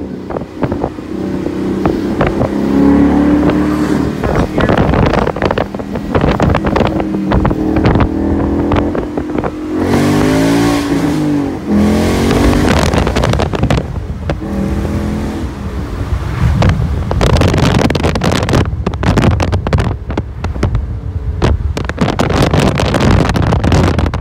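2017 Mustang GT's 5.0-litre Coyote V8 running through a Roush axle-back exhaust with an H-pipe resonator delete as the car drives along, its revs rising and falling around the middle.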